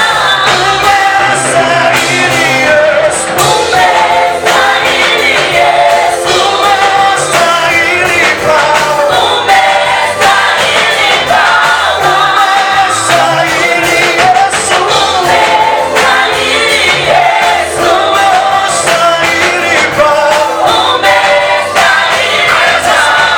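Gospel praise music: a group of voices singing together over a band with bass and a steady beat.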